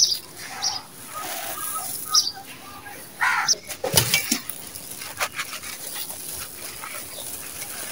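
Dry sand-cement grit and gravel crunching and rustling under the fingers, then a cement pot of white stones crumbling in the hands, with a thump about four seconds in and grit and pebbles spilling in clusters of crackles. Bird chirps sound in the background.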